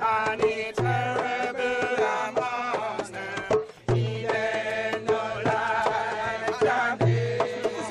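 Hand drum played in a fast rhythm of sharp strokes, with voices singing over it and a deep drum note about every three seconds. The sound breaks off briefly a little before halfway.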